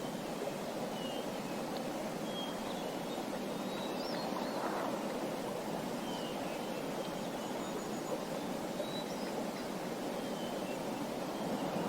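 Small birds chirping in short, high calls every second or so, over a steady rush that sounds like running water.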